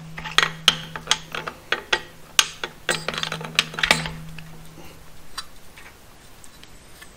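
Light metallic clicks and knocks from a new distributor being rocked and twisted as it is pushed down into a small-block Chevrolet, its drive gear working to mesh with the cam gear; being brand new, it does not mesh easily. The clicks come quickly at first and thin out after about four seconds, over a steady low hum that stops about five seconds in.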